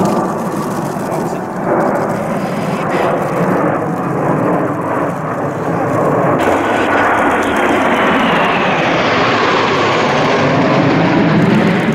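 Jet noise from a formation of six Kawasaki T-4 jet trainers flying past overhead: a steady, loud rushing that swells in the second half, with a faint whine falling in pitch as they pass.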